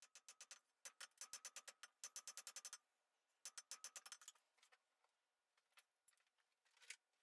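Faint, rapid hammer blows on a hot iron bar on an anvil, about six a second, as the blacksmith draws out the thickness of the tripod's legs. The blows stop briefly about three seconds in, come again in a shorter run, then give way to a few scattered taps near the end.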